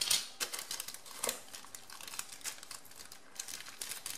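Thin plastic packaging bags crinkling in irregular crackles as hands rummage in a camera box and lift out a plastic-wrapped camera strap, loudest right at the start and again about a second in.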